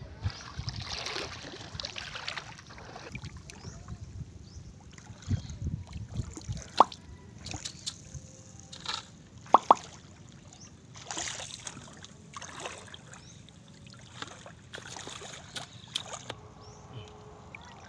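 Shallow seawater splashing and sloshing around wading feet and a bucket, in short irregular bursts, with a few sharp plops; the two loudest plops come about seven and ten seconds in.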